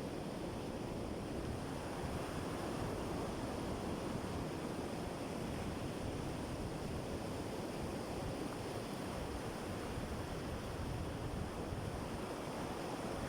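Sea surf washing onto a beach: a steady rush of waves with no single distinct break, with some wind on the microphone.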